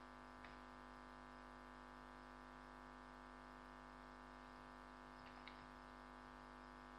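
Near silence: a steady electrical hum with a few faint clicks of computer keys being typed, one about half a second in and two close together near the end.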